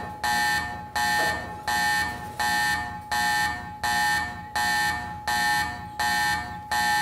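Alarm buzzer sounding over and over, a buzzy tone about three times every two seconds, each pulse starting sharply and fading before the next.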